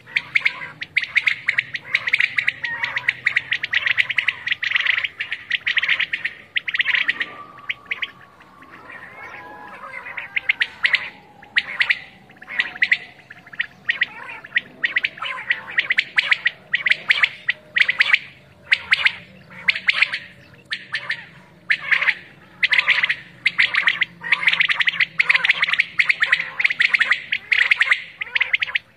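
Many caged quails calling at once, a dense chorus of rapid repeated high calls that thins for a few seconds about a quarter of the way in. A faint long falling tone runs under the middle part.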